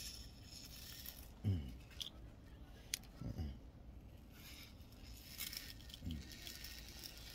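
Faint handling noises of small parts on a workbench: light clicks and scrapes, with one sharp click about three seconds in and three short low sounds that fall in pitch.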